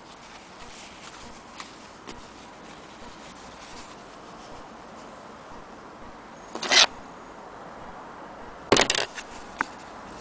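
Cloth being handled and rubbed, with faint small clicks and two brief loud rustles of fabric, one about two-thirds of the way through and another near the end.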